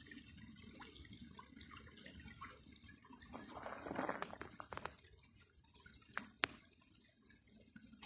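Shallow stream faintly trickling and dripping over stones, with a brief louder splashing rush about four seconds in and a few sharp clicks, the loudest about six seconds in.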